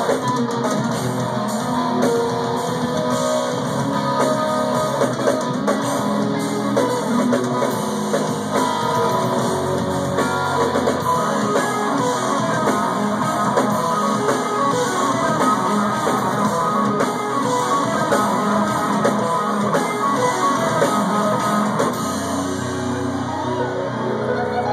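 Instrumental progressive metal played live by two eight-string electric guitars and a drum kit, with fast, intricate guitar lines over steady drumming. It is heard loud through a phone's microphone in a concert hall.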